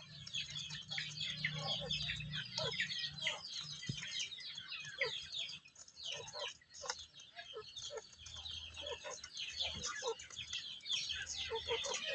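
Chickens clucking amid a dense stream of short, high chirping calls.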